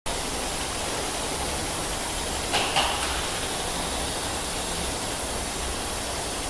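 Seoul Subway Line 6 train standing at an underground platform with its doors open: a steady hum and hiss of the train and station, with a short, sharper hiss about two and a half seconds in.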